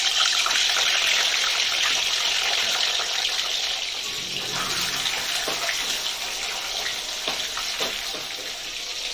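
Boiled duck eggs sizzling loudly in hot oil and ghee in an aluminium kadai as they go in and begin to fry, the sizzle easing a little, with a few light knocks as the eggs are moved about with a spatula.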